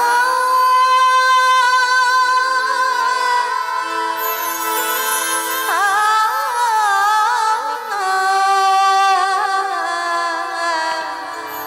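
Devotional bhajan music: a female voice holds long wordless notes with a wavering vibrato over steady sustained accompaniment, then starts a new ornamented phrase about halfway through.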